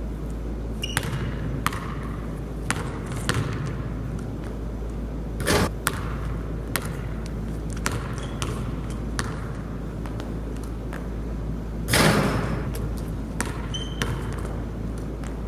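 A basketball bouncing on a hard court in irregular sharp bounces, with two louder, longer impacts about five and a half and twelve seconds in.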